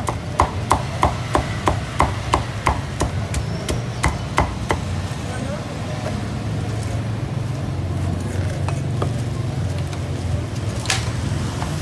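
Cleaver chopping roast pork in quick even strokes, about three a second, for the first four and a half seconds, then stopping; one more sharp chop near the end. A steady low hum runs underneath.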